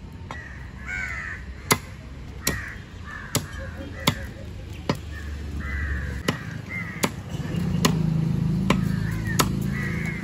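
A steel cleaver chopping through catla fish onto a wooden log chopping block: about eleven sharp knocks, roughly one a second. Crows cawing repeatedly between the chops.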